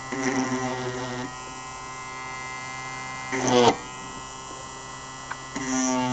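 Handheld rotary tool spinning a drill bit at about 10,000 rpm, a steady whine like a dentist drill, as the bit cuts a groove into a coated ash-wood plinth. The sound swells briefly twice, at the start and about halfway through, as the bit bites.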